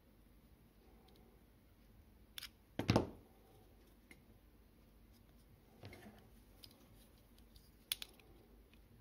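Sharp metal clicks and knocks as needle-nose pliers work a small tin toy car part, the loudest knock about three seconds in and another click near the end.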